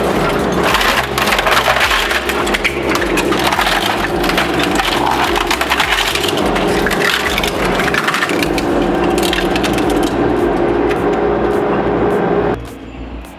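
Heavy machine grinding wood: dense splintering and cracking over a steady engine drone, cutting off abruptly near the end.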